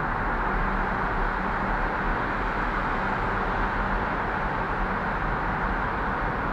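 Steady rush of tyre and road noise inside a car's cabin while driving at speed through a motorway tunnel, even and unchanging throughout.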